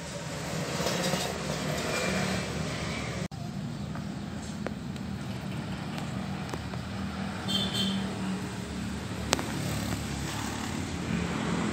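Steady low outdoor rumble, broken off for an instant about a third of the way in, with a brief high chirp past the middle and a single click near the end.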